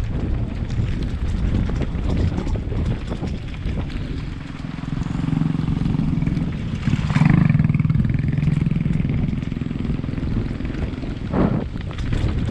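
Motorcycle engine running at low revs on a rough stone trail, with rumble and rattle from the bumpy ride and wind on the microphone. The engine hum swells in the middle and is loudest about seven seconds in.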